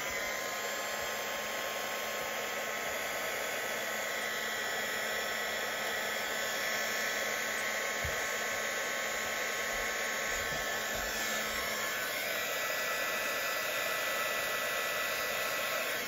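Handheld heat shrink gun blowing steadily, a fan-driven hot-air noise with a faint motor whine, shrinking heat shrink tubing over a soldered wire joint.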